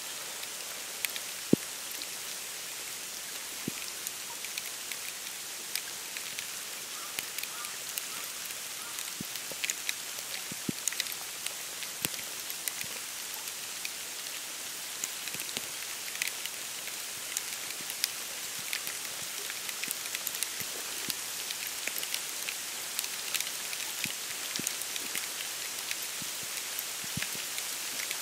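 Snow falling on the moor: a steady hiss with many scattered light ticks and taps as flakes and drops strike reeds, water and the boardwalk. One tap about a second and a half in is louder than the rest.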